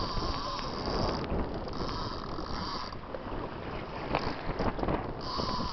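A fishing reel's drag whines steadily as a hooked mahi-mahi runs and strips line off the reel, over wind noise on the microphone. The whine stops after about three seconds and starts again near the end.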